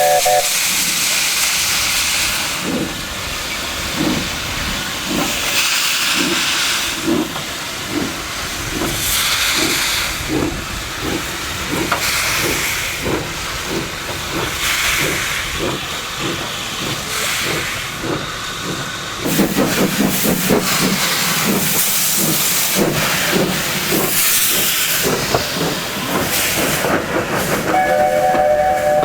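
South African Railways Class 6 steam locomotive working, its exhaust beating at about two a second over a steady hiss of steam. Its steam whistle blows briefly at the start and again near the end, several notes sounding together.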